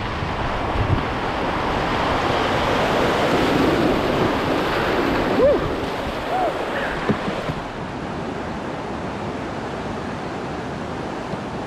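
Whitewater rushing and splashing around an open canoe as it runs a river rapid, with wind on the microphone. About three-quarters of the way through, the hiss of the rapid eases as the canoe reaches calmer water below.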